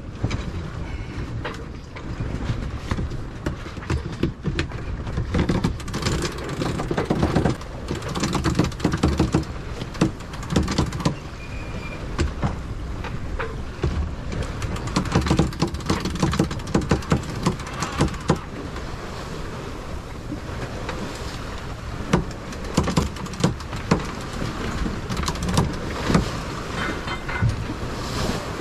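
Wind buffeting the microphone and water rushing along the hull of a sailboat under way, with frequent knocks and rattles from the boat.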